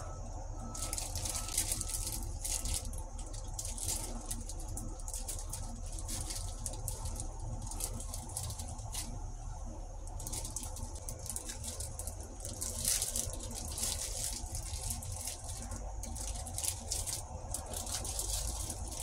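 Hands rolling soft flour tortilla wraps on a wooden board, one hand in a plastic food-prep glove: irregular soft rustling and small crinkles and taps, over a low steady hum.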